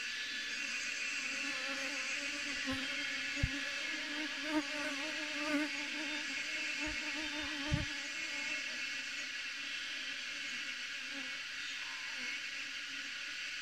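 Honeybee swarm clustered on a branch, buzzing steadily, with a few soft low bumps between about three and eight seconds in.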